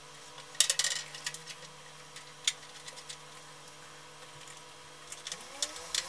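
Small metal clicks and rattles of screws being fitted to a motherboard in a metal PC case: a short clatter under a second in, a single sharp click a couple of seconds later and light ticks in between, over a faint steady hum.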